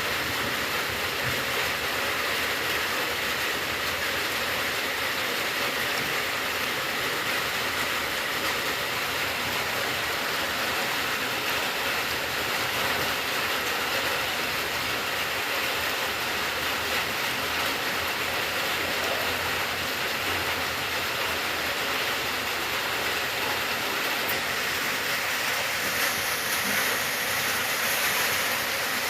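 Steady, even rain falling, an unbroken hiss with no single drops standing out.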